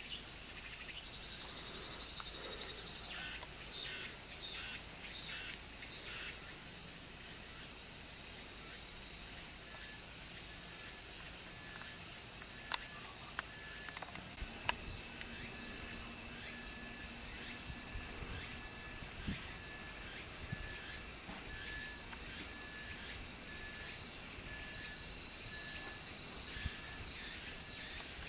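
Steady, high-pitched chorus of summer insects drilling on without pause, dropping in level about halfway through. A quick run of short chirps comes in the first few seconds.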